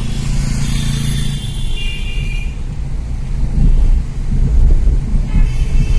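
Car driving in traffic, heard from inside the cabin: a steady low rumble of engine and road. Higher-pitched tones sound over it for the first couple of seconds and again near the end.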